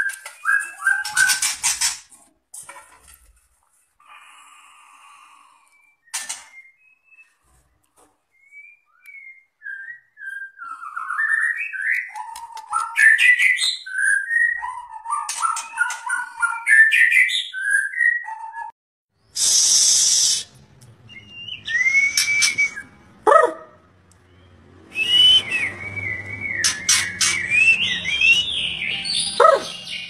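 White-rumped shama singing: a run of varied whistled phrases that slide up and down in pitch, with a brief harsh hiss about two-thirds of the way through.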